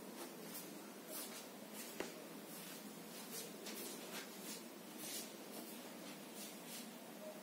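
Quiet room tone with faint hiss, broken by scattered soft rustles and one small click about two seconds in.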